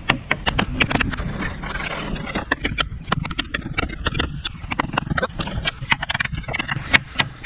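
Cold Steel Kitchen Classics serrated utility knife striking a target over and over in quick, even chopping blows, about five sharp knocks a second.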